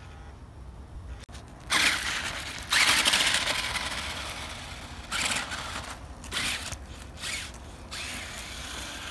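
Electric motor and gears of a radio-controlled Monster Jam Megalodon toy truck whining in bursts of throttle as it drives through snow. The loudest bursts come about two and three seconds in, with shorter ones later.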